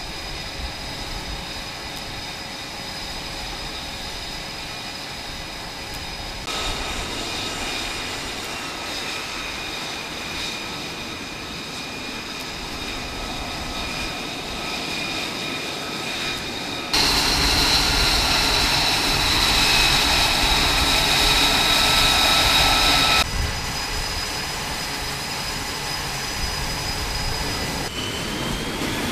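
F/A-18 jet engines running on a carrier flight deck: a steady jet roar with a high turbine whine. The sound changes abruptly several times and is loudest for about six seconds in the latter half.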